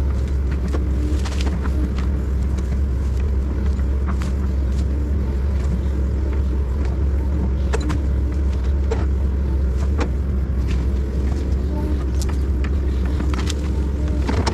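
Excavator's diesel engine running steadily, with scattered sharp clicks and knocks over it.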